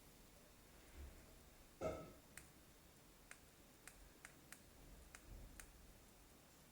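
Faint, sharp clicks, about a dozen at uneven intervals, like buttons being pressed repeatedly on a device that does not power up, with a brief louder noise about two seconds in.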